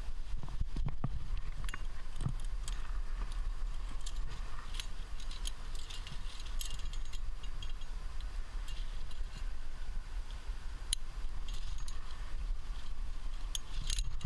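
Metal trad-climbing gear (carabiners and cams on a harness rack) clinking and jangling in scattered small clicks, over a steady low rumble.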